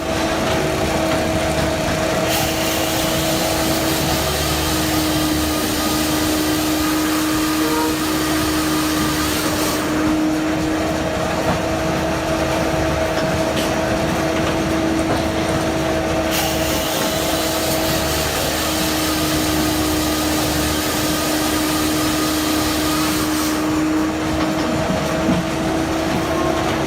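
Firewood processor running steadily: an even mechanical hum with a held whine under it, its hiss in the highs shifting a few times.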